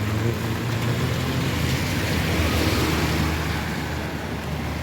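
A motor vehicle's engine running with a steady low hum, under a rushing noise that swells about halfway through.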